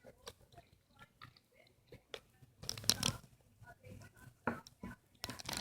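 Hands handling a plastic Play-Doh toy set close to the microphone: scattered small clicks, taps and rustles, a few louder ones about halfway through and near the end.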